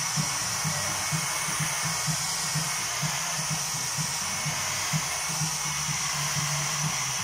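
Hand-held hair dryer blowing steadily, drying white water-based ink printed on umbrella nylon. A faint low pulsing, about twice a second, runs underneath.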